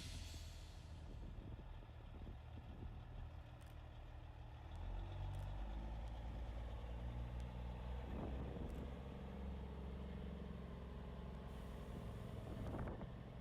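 Diesel semi-truck engines running at low speed as big rigs roll past, a steady low rumble that grows louder about five seconds in.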